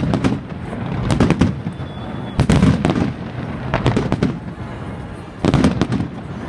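Aerial fireworks shells bursting overhead in rapid clusters of bangs, about six volleys spread through a few seconds, each with a deep rumbling report.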